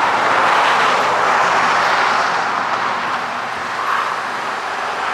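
A car driving away, a steady rush of engine and tyre noise that slowly fades.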